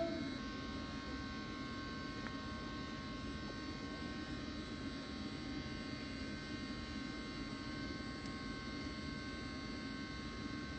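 Steady machinery hum with several constant high whining tones above it, the drone of running equipment in a mechanical room. A couple of faint clicks, about two seconds in and near the end.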